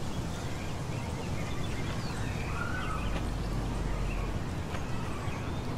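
Steady outdoor background noise with a few faint bird chirps about two to three and a half seconds in.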